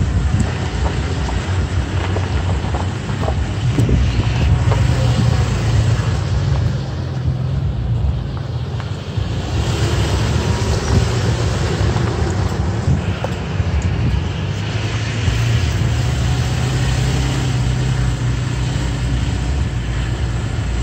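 Toyota Tacoma pickup driving along a dirt trail: a steady low engine hum under continuous tyre and road noise, picked up through the open side window.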